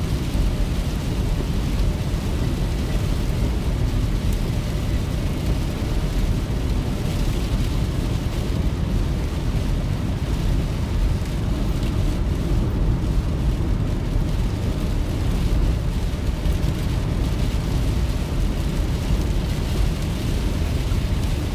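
Steady low rumble of a car's engine and tyres on a wet road, heard inside the cabin, with the hiss of rain on the car.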